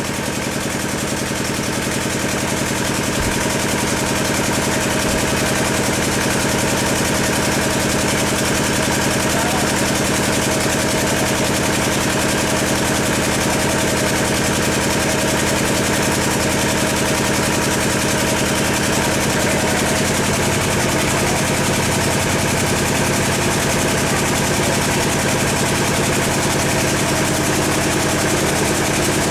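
A steady mechanical hum, like an engine idling, made of several low held tones under a constant hiss.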